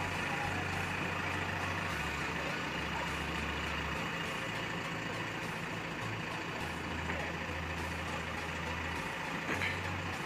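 Diesel engine of a JCB backhoe loader running steadily while its arm lifts a truck cabin hung on chains; the low engine hum shifts between a few pitches.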